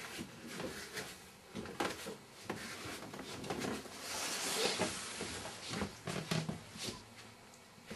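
Scattered light knocks and clicks with a patch of rustling about halfway through: objects being handled or moved.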